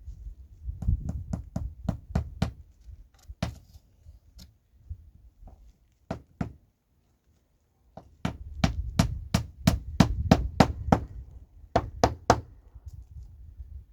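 Hammer blows driving nails into timber on a wooden house build. There are two runs of quick strikes, about three a second, with a short break in the middle.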